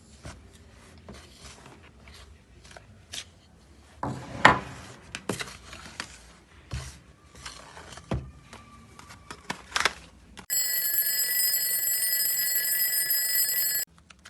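A kitchen utensil clinking and scraping in a bowl of dry cake ingredients (flour, sugar, baking powder) being stirred together. About ten seconds in, a loud steady electronic ringing tone cuts in for about three seconds and stops abruptly.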